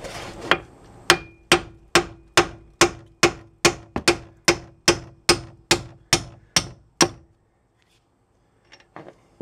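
Hammer blows knocking a steel bolt out of the strut bracket on a car's front suspension. There are about fifteen sharp strikes in a steady rhythm, a little over two a second, each with a short metallic ring. The blows stop about seven seconds in.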